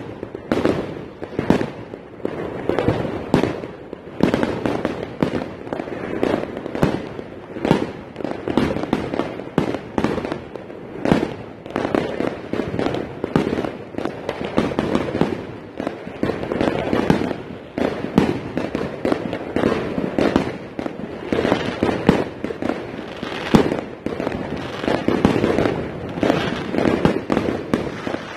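Consumer fireworks, aerial shells and firecrackers, going off in a dense, unbroken run of bangs, several a second.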